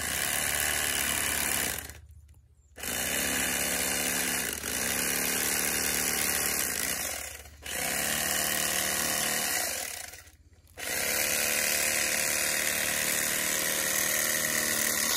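Electric fillet knife running in four bursts with short stops between them, its motor whine sagging in pitch as the reciprocating blades bear down and cut through a smallmouth bass.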